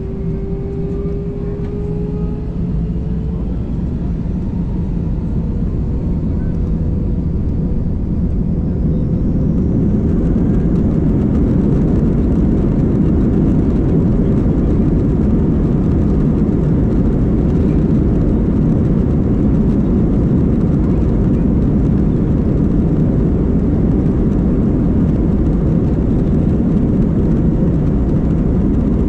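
Airbus A321-200's jet engines spooling up to takeoff thrust, heard from inside the cabin behind the wing: a whine that rises in pitch over the first few seconds, then loud, steady engine noise with a low rumble as the airliner accelerates down the runway on its takeoff roll.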